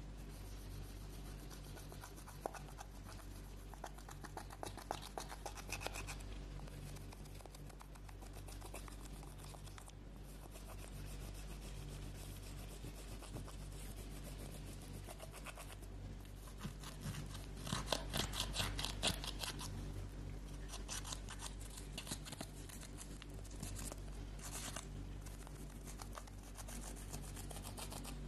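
Metal spatula scraping and crushing pressed eyeshadow in its palette pans: an irregular gritty scratching and crumbling, with a denser run of quick scrapes about two-thirds of the way through.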